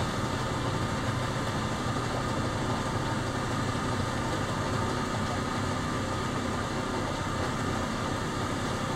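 Electric solar boat under way: a steady rushing noise of the boat moving through the water, with a faint steady hum beneath it.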